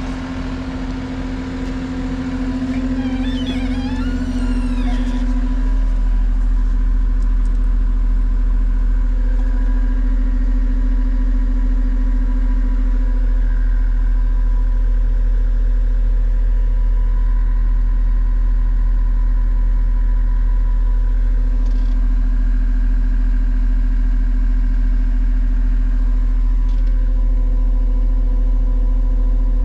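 The diesel engine of a Deere 333G tracked skid steer running, its speed brought up over the first few seconds and then held steady at a high, even pitch. A brief wavering squeal sounds a few seconds in.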